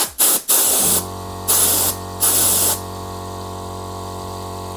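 Tekiro air duster gun fired in four short blasts of air in quick succession, regulated to 50 psi. From about a second in, a steady motor hum sets in: the air compressor running.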